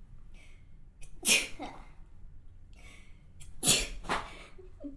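A woman sneezing twice, about two and a half seconds apart. Each sneeze comes after a quick in-breath and has a short second burst trailing just after it.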